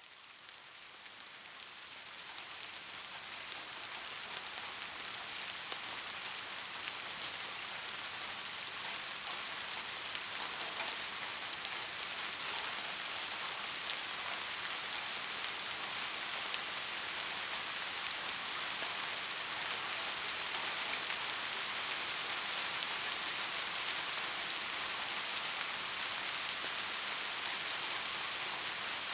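Steady rain falling, a dense hiss of drops. It fades in over the first few seconds, then holds steady.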